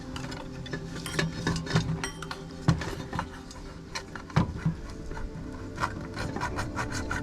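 A hand-held blade scraping and clicking against metal in short, irregular strokes, worked at a stripped screw that will not come out.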